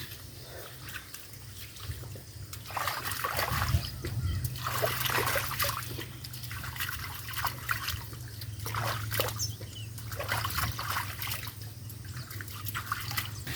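Water trickling and splashing in irregular bursts, from about three seconds in, as a muddy, waterlogged arrowroot bed is worked. A low steady hum runs underneath.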